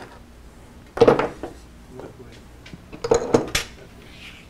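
Light metal clinks and clatter of hand tools being handled: a few sharp knocks about a second in and a quick cluster of them around three seconds in.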